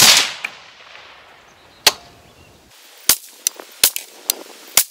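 Gas-piston AR-15 rifle in 5.56 firing a string of shots for a group. One very loud shot at the start rings out with a long echo, another comes about two seconds in, then several shorter, sharp cracks follow in quicker succession near the end.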